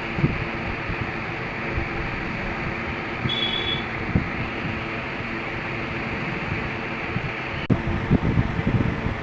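Mini cooler's electric fan motor running with a steady hum. A sharp click comes near the end, followed by a few knocks.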